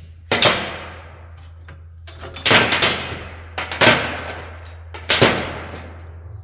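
Rear drum brake shoes, return springs and hardware being pried apart and pulled off: a string of sharp metal clanks, about five, each ringing briefly.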